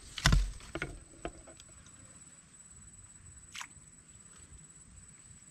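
Close handling noise: a loud thump and rustle just after the start, a few sharp clicks within the first second and a half, and one short sharp knock about three and a half seconds in. After that there is only a faint steady hiss with a thin, high, steady whine.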